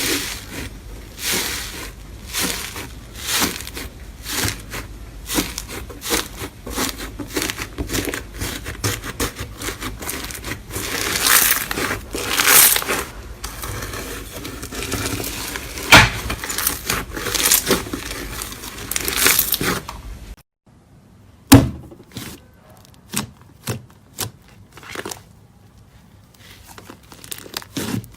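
Slime being squished and stretched by hand: a dense run of sticky crackles and pops, then after a sudden break about twenty seconds in, sparser single pops and clicks.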